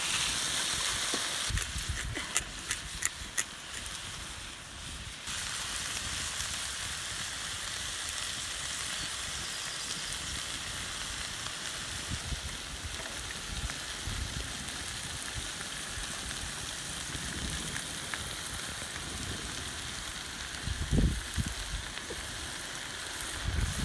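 Vegetables sizzling in a steel pan over an open wood fire, a steady frying hiss. A few sharp clicks come in the first few seconds, and a few low thumps near the end.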